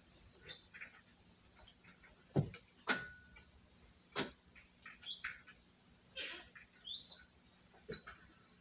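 Satin comforter rustling and sliding as it is pulled, with two sharp knocks a few seconds in and several short high chirping squeaks.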